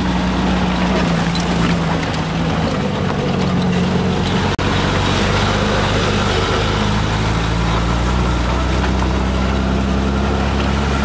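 GAZ-69 off-roader's engine running steadily, with a momentary break in the sound about four and a half seconds in.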